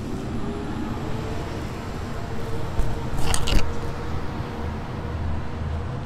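Road traffic noise: the steady low rumble of a passing motor vehicle, with a faint engine tone. About three seconds in comes a short burst of sharp metallic clinks.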